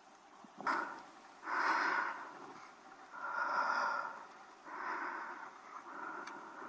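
Heavy, rhythmic breathing of a hiker working hard on a steep uphill climb, a breath about every second and a half.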